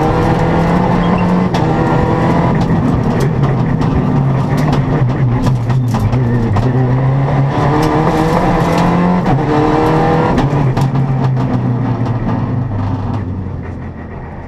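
Rally car engine heard from inside the cockpit, pulling hard and stepping up and down in pitch as it changes gear, with many sharp clicks and cracks over it. The sound fades away over the last couple of seconds.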